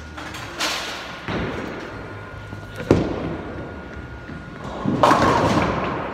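Bowling alley sounds: a sharp, heavy thud of a bowling ball about three seconds in, then a clattering crash of pins lasting about a second.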